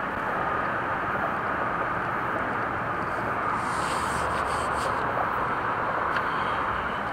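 Steady rubbing hiss of a hand smoothing Eternabond tape down over a solar panel's edge onto the van roof, with a few brief crinkles about four to five seconds in.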